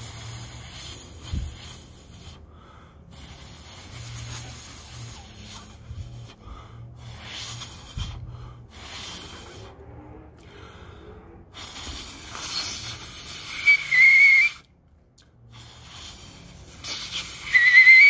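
A man breathing out in several breathy, hissing sighs over his outstretched tongue, practising a whistle without fingers. Near the end come two short, loud, high whistles; the second is the loudest and rises slightly in pitch.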